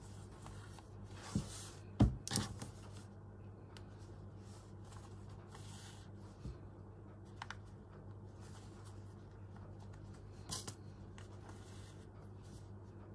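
Soft swishes and rustling of fabric and thread being handled during hand stitching, with a few light knocks, the loudest about two seconds in. A low steady hum lies underneath.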